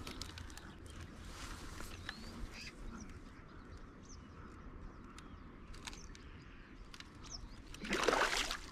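A hooked wild carp (sazan) splashes hard at the water's surface near the end, the loudest sound. Before it there are several seconds of quiet riverside background with faint bird calls.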